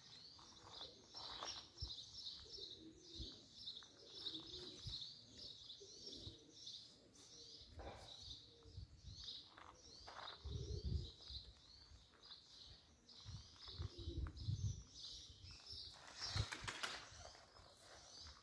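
Many small birds chirping on and on in a dense, quick chatter, with a few low thumps partway through.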